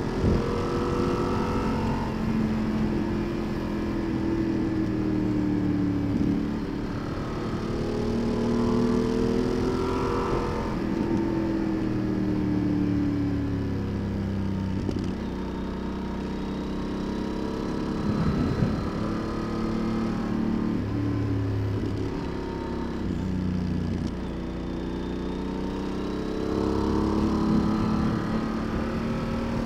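Yamaha XT1200Z Super Tenere's parallel-twin engine on the move, its pitch climbing under throttle and dropping back again and again through the bends, over steady wind rush.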